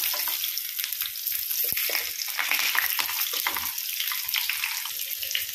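Hot oil sizzling steadily with fine crackles around rava-coated, potato-stuffed capsicum slices shallow-frying in a pan.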